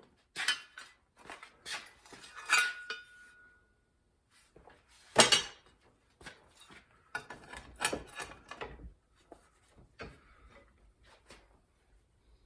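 Irregular metal clinks and knocks as a sheet-steel repair patch and hand tools are handled and tapped. One strike about two and a half seconds in leaves a short ringing tone, and the loudest knock comes about five seconds in.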